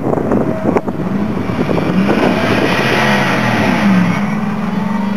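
Ford F-150 Lightning pickup's V8 at full throttle down a drag strip, its note climbing, then dropping at a gear shift about three and a half seconds in before pulling steadily again.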